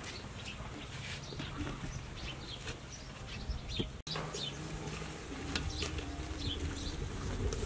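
Rural outdoor ambience: small birds chirping intermittently over a steady low hum, with a brief break about four seconds in.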